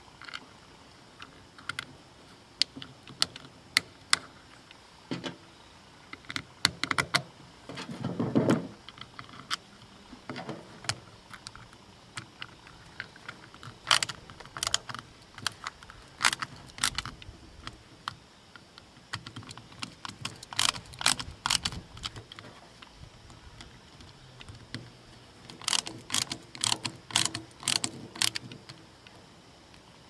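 Sharp clicks and taps of hard plastic parts and a screwdriver on the small screws of a GFCI plug housing, coming singly and in quick clusters, with a brief rubbing sound about eight seconds in.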